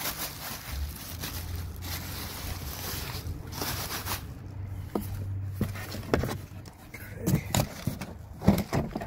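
Plastic wrapping crinkling and cardboard rustling as a pressure washer is pulled out of its box, with a run of knocks and thumps in the second half.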